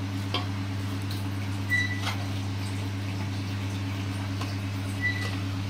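A steady low electrical hum, with a few faint light clicks and rustles as chopped coriander leaves are dropped by hand into a steel bowl.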